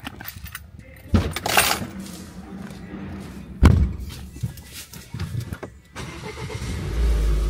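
A car being got into and started: two heavy thumps like doors shutting, a few seconds apart, then the engine starting near the end and settling into a low steady running.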